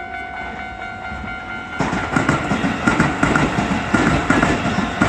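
Electronic railway crossing alarm sounding as one steady tone, then about two seconds in a Keisei Line train passes through the crossing, its wheels clattering over the rail joints and drowning the alarm.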